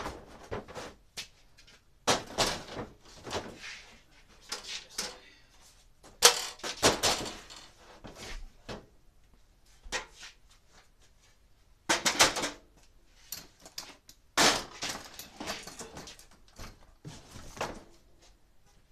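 Hard objects being handled, moved and set down: irregular clattering and knocks in clusters, loudest about six seconds in.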